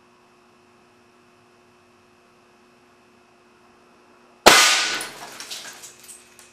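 Compressed-air cannon (fire-extinguisher tank with a solenoid valve) firing at 300 psi: a sudden sharp bang about four and a half seconds in as the chapstick round strikes the CRT glass. The bang trails off over about a second and a half with a few smaller clatters.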